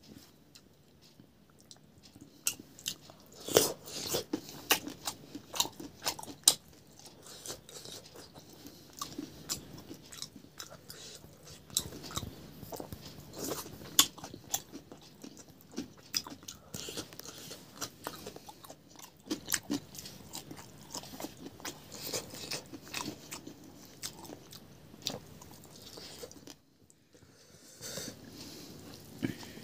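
A person eating close to the microphone: chewing and crunching food with many sharp mouth clicks and smacks.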